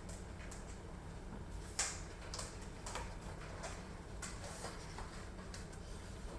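Faint, irregular clicks and ticks over a low steady hum, the sharpest click about two seconds in.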